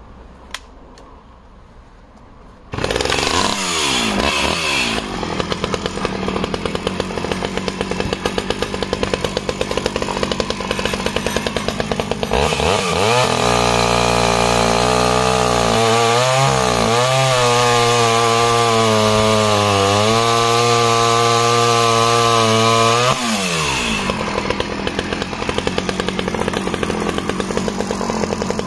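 A Stihl 009 top-handle chainsaw, an early-1990s two-stroke, starts about three seconds in, revs and settles, then is held at full throttle for a long cut through a log with its 12-inch bar fully buried, the pitch sagging under the load. Near the end it drops back to idle.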